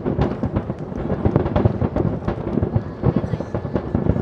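Aerial fireworks bursting in a rapid, continuous barrage, many bangs overlapping with a steady rumble and no gaps between them.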